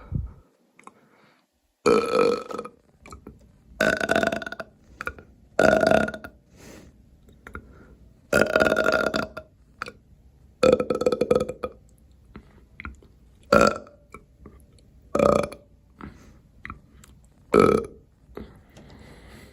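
A person burping repeatedly and loudly, about eight separate burps, one every two seconds or so, some short and one drawn out for about a second.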